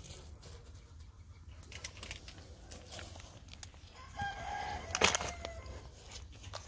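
A rooster crowing once, starting about four seconds in and ending with a falling tail. Before it come scattered small clicks and rustles of hands working dry, cloddy soil, and a single sharp knock lands in the middle of the crow.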